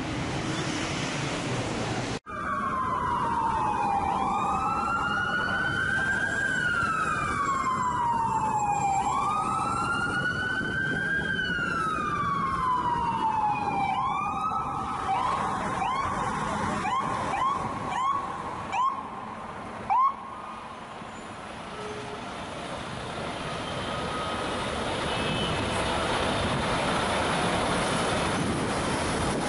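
Emergency vehicle's electronic siren wailing, its pitch rising and falling slowly twice, then switching to a string of short quick chirps that thin out and stop about two-thirds of the way through. Steady city street traffic noise before and after.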